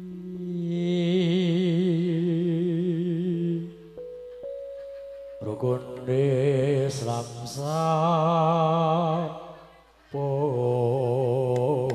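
A man's voice singing a slow Javanese pepeling chant into a microphone over the PA, long held notes with wide vibrato in three drawn-out phrases separated by short pauses.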